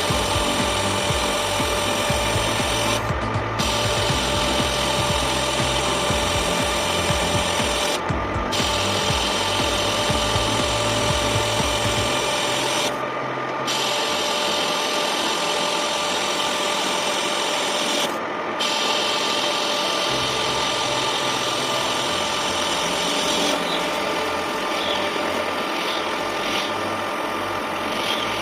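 Manual lathe running and cutting metal: a steady machine whine under a continuous scraping cut as the tool turns a thin-walled workpiece.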